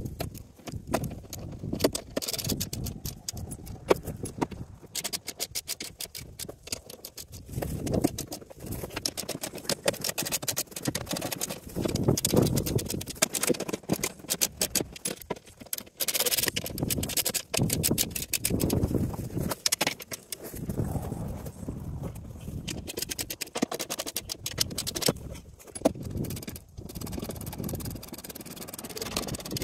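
Irregular clicking, knocking and scraping of hand tools and fasteners worked against the underside of a CFMoto UForce 600 during a skid plate installation, with gravel shifting under the worker.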